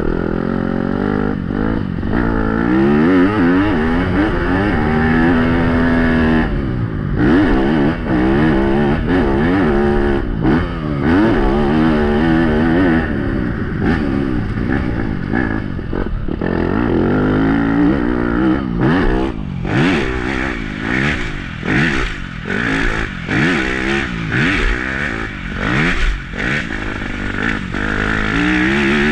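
Yamaha YZ250F four-stroke single-cylinder motocross bike running hard around a track, the engine revving up and dropping back again and again as the throttle is opened and closed.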